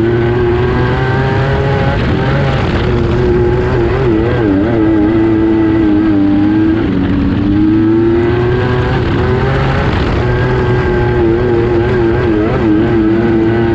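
Wingless sprintcar engine heard from the cockpit, running hard at a steady high pitch that wobbles and dips twice as the car races around a dirt oval.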